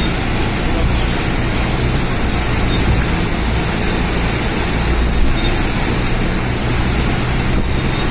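Steady rushing noise with a low engine hum beneath it, as from a vehicle moving through deep floodwater.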